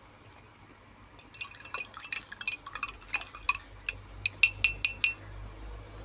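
Metal spoon stirring a drink in a glass jar, clinking quickly against the glass, with about six louder ringing clinks near the end before it stops.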